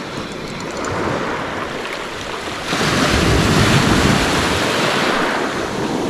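Baltic Sea surf washing onto the beach: a steady wash of waves, with one wave breaking a little under three seconds in, its hiss lasting about three seconds before easing off.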